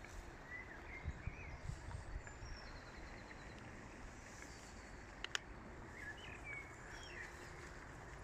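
Several small songbirds singing and chirping in a spring dawn-chorus style, with short warbled phrases and a brief trill, faint over a steady outdoor hiss. A couple of sharp clicks sound about five seconds in.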